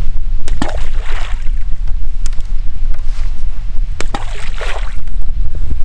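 Wind buffeting the microphone with a steady low rumble. Twice, about half a second in and again about four seconds in, a sharp click is followed by a short splash as a ball of groundbait lands in the lake.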